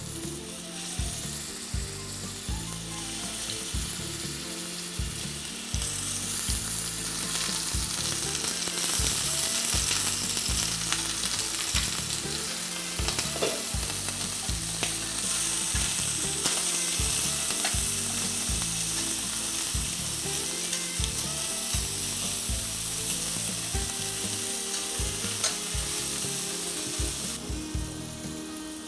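Plant-based meatballs sizzling as they fry in hot oil in a stainless steel pot. The sizzle grows louder about six seconds in and eases near the end, with occasional light clicks of utensils turning the meatballs against the pan.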